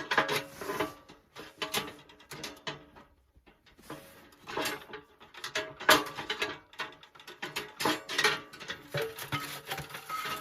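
Sheet-metal parts of a small tent wood stove, stovepipe sections among them, clanking and rattling against each other as they are handled and pulled out of the stove body, in irregular knocks with a short metallic ring.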